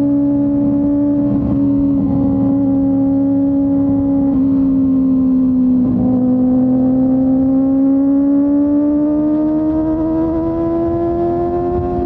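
Kawasaki Ninja ZX-25R's 249 cc inline-four running at high revs through a Yoshimura R-11 exhaust while riding. The engine note holds steady, dips slightly about halfway, then climbs gradually as the bike speeds up.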